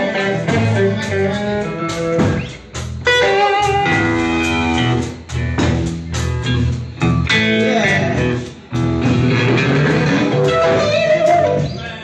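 Live band playing a blues number, led by electric guitar over drums, with loud, steady playing throughout.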